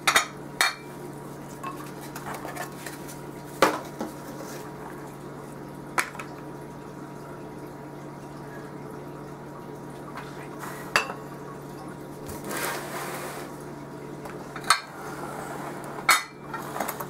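Glass food-storage containers and their plastic snap-lock lids clinking and knocking as they are handled and stacked on a tabletop: about seven sharp clinks a few seconds apart, with a brief rustle in the second half.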